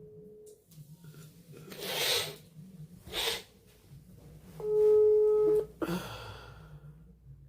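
Telephone ringback tone heard over a phone's speaker: a steady single tone ringing for about a second, once at the start and again, louder, about five seconds later, the sign that the dialled phone is ringing. Two short, sharp breaths fall between the rings.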